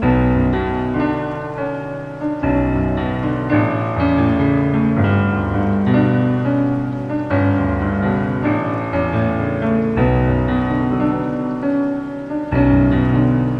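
Casio CDP-230R digital piano playing a slow improvised piece: sustained chords over low bass notes that change every two to three seconds.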